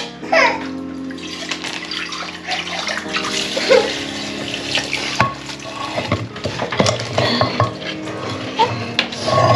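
Running water splashing steadily, with soft background music underneath.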